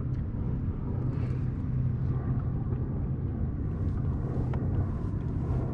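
Steady low motor hum over a rumble, with faint light ticks scattered through it.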